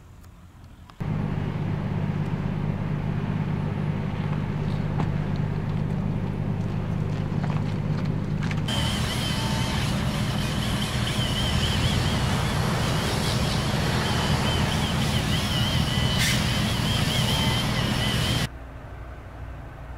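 An engine idling with a steady low hum that starts suddenly about a second in. A little over halfway through it gives way to a broad rushing noise with a faint, wavering high whistle, which cuts off shortly before the end.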